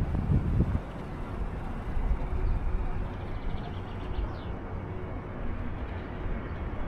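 Outdoor city ambience: a steady low rumble with a few faint, short high chirps in the middle, after a voice trails off at the very start.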